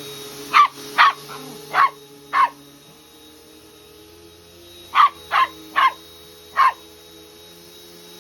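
Dog barking at a running vacuum cleaner: eight sharp barks in two bursts of four, over a steady hum.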